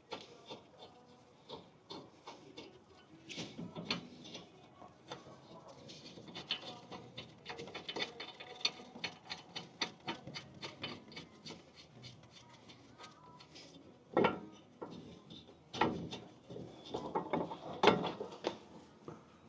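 Ratchet wrench clicking in quick runs as bolts are turned, with a few louder metal clunks near the end.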